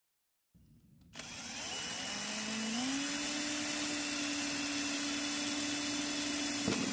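Cordless drill running, its twist bit boring a hole through the thin wall of a plastic tub. The motor starts about a second in, steps up in pitch a little before three seconds in, then holds a steady whine.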